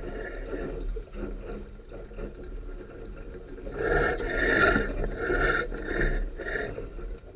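Sunfish dinghy under sail, with water washing along the hull and a low wind rumble. From about four seconds in comes a string of rough, pitched creaks and rubs from the rig, each about half a second long.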